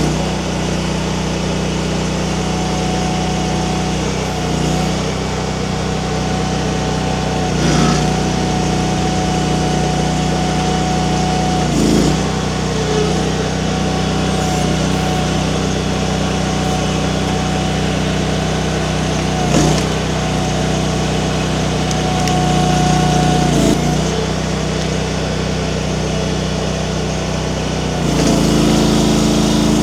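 Mini skid steer engine running steadily with its hydraulics working a skid-steer wood splitter attachment, a steady whine held for long stretches under load, broken by several sharp knocks or cracks.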